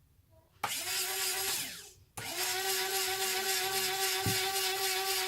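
Small electric gear motor driving a model's ramp. It whines for about a second, then winds down in pitch as it is cut off, which is what the end switch does. It then starts again and runs at a steady pitch, with a single knock partway through.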